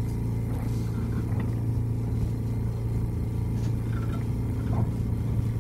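Cabin noise of a Chikuho Electric Railway electric train pulling away from a station: a steady low drone from the motors and running gear, with a few faint clicks and rattles.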